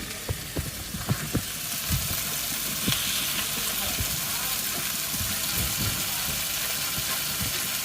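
Food frying with a steady sizzle, with a few sharp clicks and knocks in the first couple of seconds.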